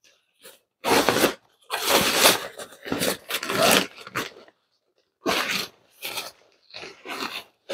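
Fabric carry bag rustling and scraping in irregular bursts as a folded camping cot is worked down into it.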